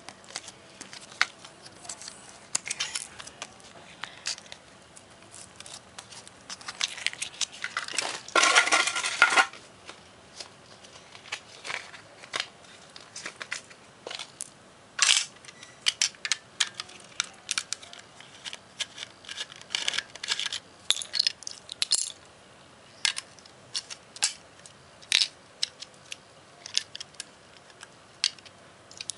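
Small hard plastic and metal clicks and clinks from fitting LR44 button-cell batteries into a toy Gashat's battery compartment, with a longer rattling scrape about eight seconds in.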